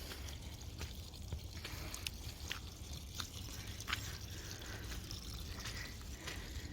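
Water dripping faintly in scattered light ticks, over a low steady rumble.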